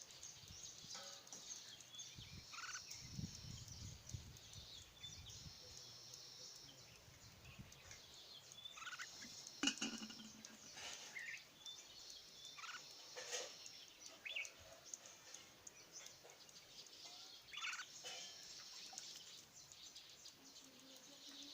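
Faint bird calls outdoors: short, sharp notes from red-whiskered bulbuls, scattered every few seconds with the loudest about ten seconds in, over a steady high-pitched chirping in the background.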